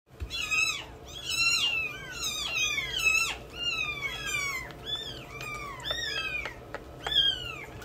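Very young kitten mewing over and over, thin high cries that each fall in pitch, about two a second.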